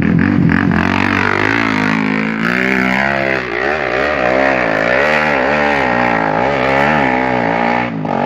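Dirt bike engine revving hard on a hill climb, its pitch rising and falling about twice a second as the throttle works through the climb.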